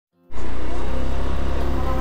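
Motor scooter's engine running as the bike rolls slowly, a steady low drone with a broad rushing noise, cutting in abruptly just after the start.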